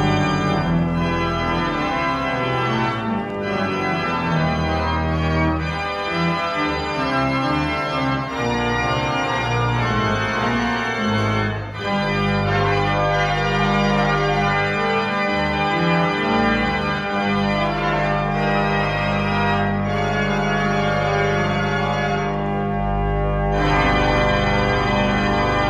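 Church organ playing a closing voluntary: full sustained chords over deep pedal notes, with the harmony changing every few seconds.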